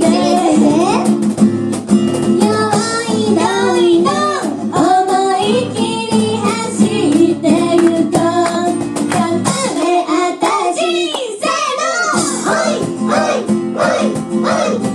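Live acoustic pop song: singing voices over a strummed acoustic guitar, the guitar thinning out briefly about ten seconds in before coming back.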